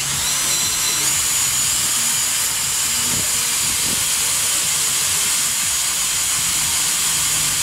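DeWALT cordless drill running continuously under load, boring into a log: a loud, steady hiss with a faint high whine.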